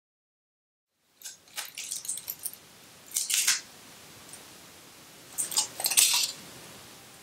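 Crumpled aluminium foil crinkling in the hands in three short bursts, starting about a second in, as heart-shaped paper stickers are peeled off it.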